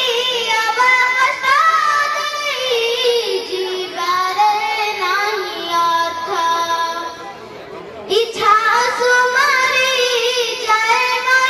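A girl singing solo into a microphone, holding long notes that waver in pitch, with a brief break about eight seconds in before she goes on.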